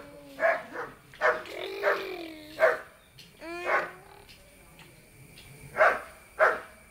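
A dog barking: a run of short barks, then two sharp barks in quick succession near the end.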